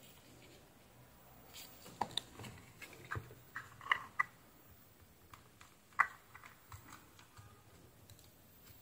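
Scattered small plastic clicks and taps as a plastic USB-C plug housing is handled and fitted onto a charger cable end, the sharpest click about six seconds in.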